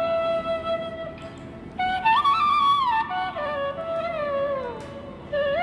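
Background music: a single flute-like wind melody of held notes with sliding, ornamented pitch bends.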